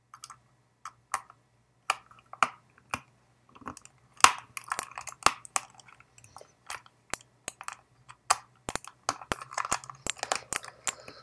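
Small screwdriver driving a screw back into the plastic underside of a Logitech M305 wireless mouse: irregular sharp clicks and scraping ticks of the tip working in the screw head, coming much thicker from about four seconds in.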